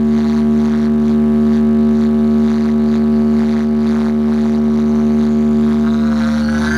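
A DJ sound box stack of ten bass and twelve mid-range speakers playing a loud electronic drone: one steady held tone with its overtones, unchanging throughout.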